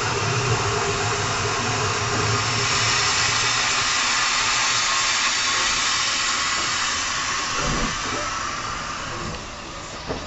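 Steam locomotive moving slowly with its cylinder drain cocks open, a loud steady hiss of escaping steam over a low rumble. The hiss eases off near the end.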